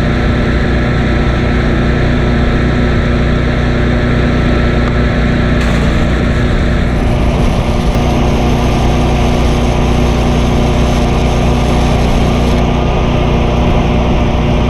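Stick-welding arc from a 6011 rod run electrode-negative with a whipping motion, filling a wide open root pass, over a steady engine drone. The arc noise grows stronger and higher about six seconds in and falls back a couple of seconds before the end.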